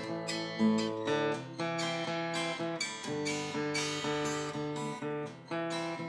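Acoustic guitar strummed in a steady rhythm, changing chords, in an instrumental passage between sung lines.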